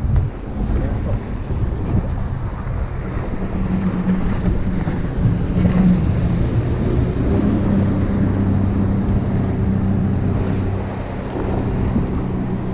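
Wind buffeting the microphone over a steady low boat-engine hum and ocean waves, with the hum stronger through the middle.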